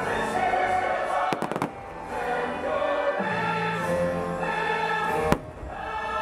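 Choral show music playing loudly while fireworks go off over it: a quick run of bangs about a second and a half in, and one sharp, louder bang near the end.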